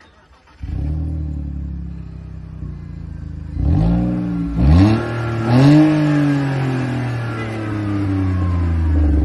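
A car engine starts about half a second in and settles to idle, is revved three times in quick succession, then idles steadily again. It sounds pretty good.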